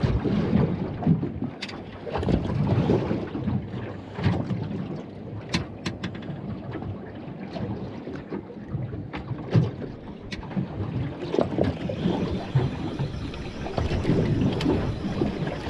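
Wind buffeting the microphone and water lapping against a small fishing boat, with a handful of short, sharp knocks on the boat.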